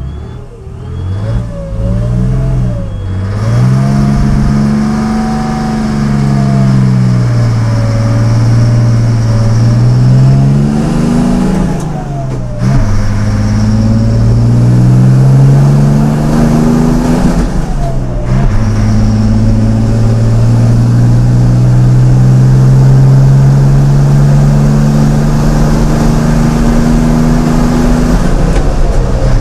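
Record-attempt tractor's engine heard from inside the cab, accelerating hard through the gears from a standing start. The pitch climbs and then drops sharply at each gear change, clearly about 12 and 18 seconds in, before a long steady climb in the top gear.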